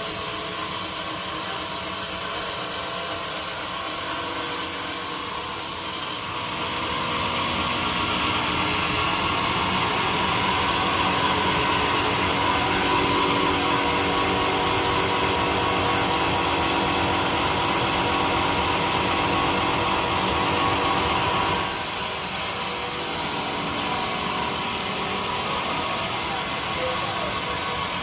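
A woodworking power tool running steadily against wood, with the sound changing abruptly about six seconds in and again about twenty-two seconds in.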